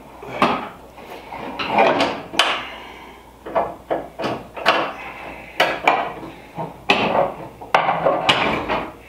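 Irregular clicks, knocks and scrapes of bolts and a carbon-fibre wing's uprights being worked against their mounts while hunting for the bolt holes.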